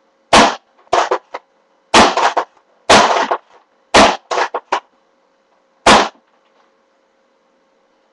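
Spring-powered airsoft MP5A rifle being cocked and fired: a string of loud, sharp clacks, some coming in quick clusters, over about six seconds.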